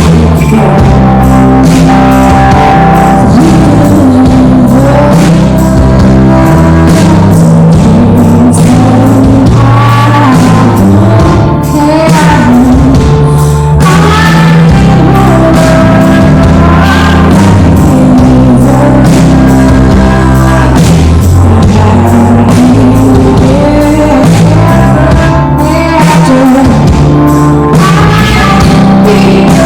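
Live rock song with a loud band, a singing voice over guitar and a steady bass.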